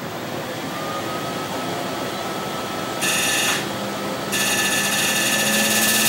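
Excimer laser firing during PRK eye surgery. A short, high buzz about three seconds in is followed by a steady high buzz from about four seconds in, over a constant machine hiss.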